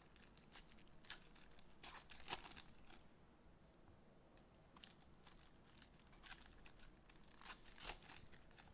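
Faint crinkling and tearing of trading-card pack wrappers being opened by hand, in scattered short crackles, loudest about two seconds in and again near the end.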